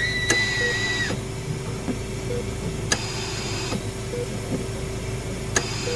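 Haunted-hospital sound-effects ambience: a steady electrical hum with a soft, low beep repeating about every second and a half. A high squeal sounds for about the first second and bends down as it stops, and sharp clicks come three times.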